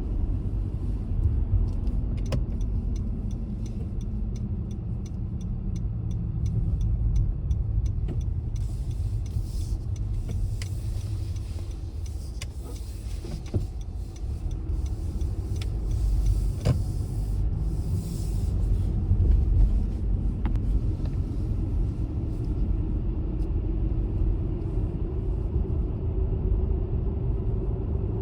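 Car driving, a steady low rumble of engine and road noise, with a regular light ticking for the first several seconds and a hiss that comes and goes in the middle. The engine note rises slowly in pitch near the end.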